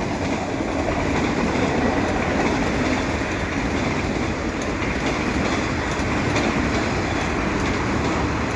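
Auto rack cars of a Canadian Pacific freight train rolling past, their steel wheels making a steady rumble on the rails.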